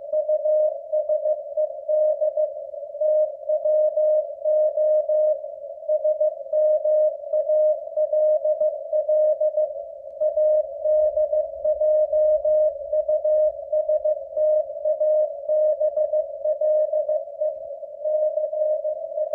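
Morse code at 15 words per minute from a W1AW code practice transmission: a single steady mid-pitched tone keyed on and off in dots and dashes, with a faint background hiss between the characters.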